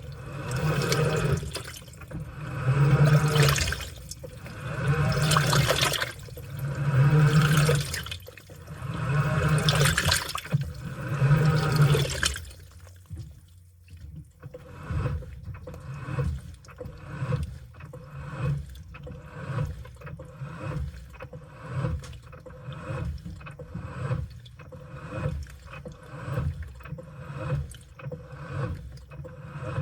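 Washing machine washing, with water sloshing in regular swells about every two seconds over the motor's hum as the drum or agitator turns back and forth. About 12 seconds in the strong sloshing stops, and a quieter, even pattern of soft splashes and knocks about once a second carries on.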